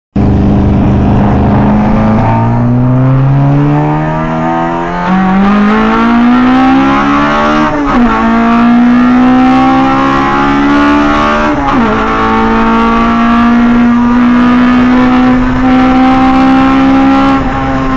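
Honda Integra Type R's four-cylinder engine breathing through individual throttle bodies, accelerating hard through the gears: its loud intake note rises in pitch, drops at three gear changes, then holds a nearly steady high pitch near the end.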